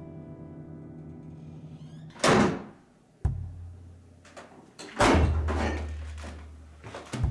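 Refrigerator door opening with a whoosh about two seconds in, a knock a second later, and the door shutting with a thud about five seconds in, over a low hum. A held music chord fades out before the door sounds.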